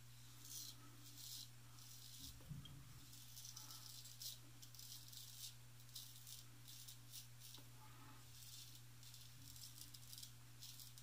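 Faint rasp of a Wade & Butcher 7/8 full-hollow straight razor cutting stubble against the grain on the neck, in short strokes about two a second with brief pauses.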